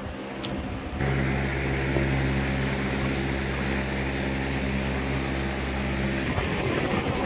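A steady engine drone: a low hum with a hiss above it, starting about a second in. The low hum drops out about six seconds in while the hiss carries on.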